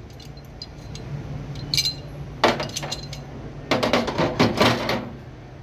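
Steel parts of a disassembled 1911 .45 pistol clinking and knocking against each other and the plastic tub as they are handled and set down. A few sharp clicks come first, then a busier run of knocks about four seconds in.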